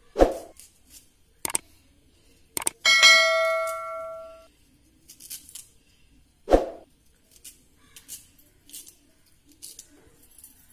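Ginger being cut into small pieces with a knife over a steel mixer-grinder jar: two dull knocks, a few sharp clicks and light ticks of the blade and dropping pieces. About three seconds in, the steel jar is struck and rings with a metallic clang for over a second.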